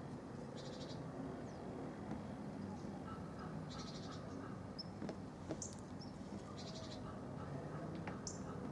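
Outdoor animal calls: short bursts of rapid high chirping repeating about every three seconds, with a few brief high whistled notes over a steady low background rumble.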